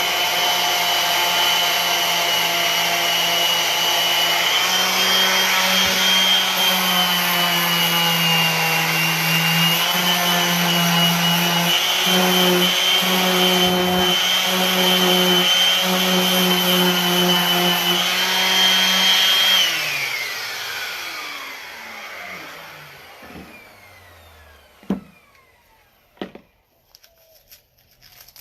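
Electric power sander running on a wooden bass neck, its motor pitch dipping and rising as it is pressed into the wood. It is switched off about twenty seconds in and spins down, followed by a few light knocks.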